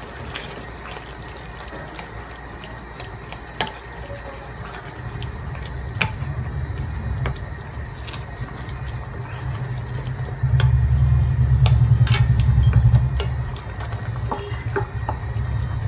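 A spatula stirring cream into thick chicken stew in a metal kadhai: scattered scraping clicks over a wet, bubbling sound. A low rumble comes in about five seconds in and is loudest for a few seconds past the middle.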